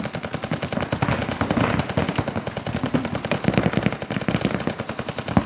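Paintball markers firing rapid, continuous strings of shots, the pops running together many times a second as several players shoot at once.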